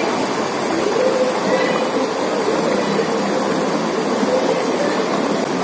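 Shallow stream rushing steadily over rocks close to the microphone, with a faint wavering hum underneath.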